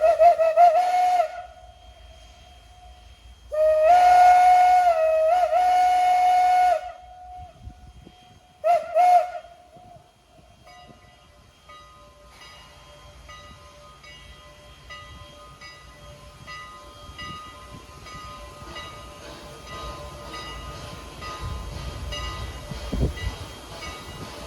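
PRR banshee steam whistle on a 2-6-0 Mogul steam locomotive blowing three blasts, short, long, short, its chord wavering in pitch. After the blasts the train's low running sound grows slowly louder.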